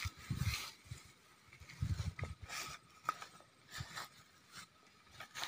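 Footsteps pushing through grass and leafy undergrowth: irregular crunches and swishes of stems and leaves, with one sharp snap about three seconds in.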